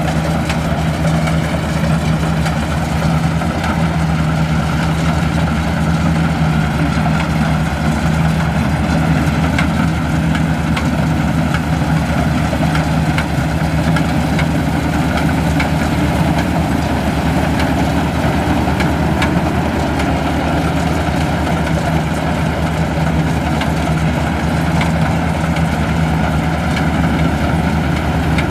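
Maxxi Bimo Xtreme combine harvester running steadily while harvesting rice, its engine and machinery making an unbroken low drone.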